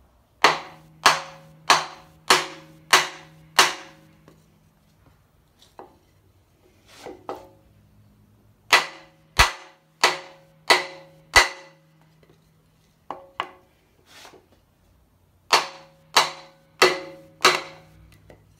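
Blows struck on a wooden block held against the harmonic balancer of a Jeep 4.0 inline-six, driving the balancer onto the crankshaft snout. Sharp knocks come in three runs of five or six, about three every two seconds, each followed by a brief metallic ring from the engine.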